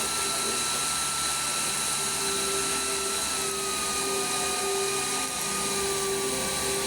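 Airbus A400M turboprop engine sound: a steady jet-like whine over a rushing roar, with a high whistling tone that dips slightly about three seconds in.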